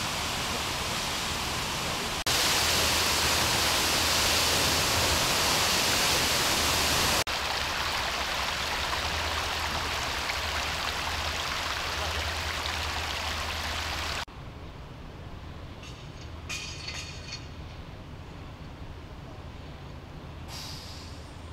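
Water gushing from a sheared-off fire hydrant: a steady rushing hiss that jumps louder about two seconds in and eases back about five seconds later. It cuts off abruptly about fourteen seconds in, leaving a much quieter background with a few faint clicks.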